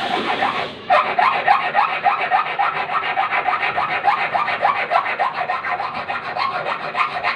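Hand file rasping quickly back and forth on a small metal piece, sharpening the point of a home-made spoon fishing lure. A short rasp, a brief pause, then from about a second in a steady run of rapid strokes, several a second, each with a short rising squeak.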